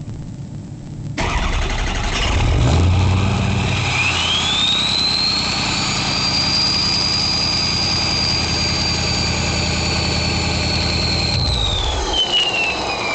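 Turbo whistle of a 2003 Ford F-350's 6.0 Power Stroke V8 turbodiesel, heard with its MBRP exhaust. Over the engine's low running sound the whistle rises about four seconds in, holds at one high pitch for several seconds, then falls in pitch near the end as the engine's low sound stops.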